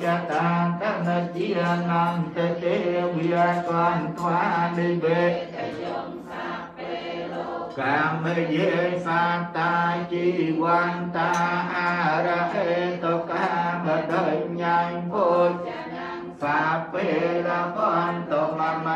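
Buddhist devotional chanting by voices reciting in unison, in a rhythmic run of syllables over a steady low held tone. The low tone drops out about six seconds in and comes back about two seconds later.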